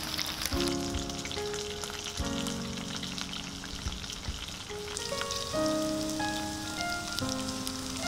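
Chicken wing tips deep-frying in oil, a steady crackling sizzle, under background music of held melodic notes.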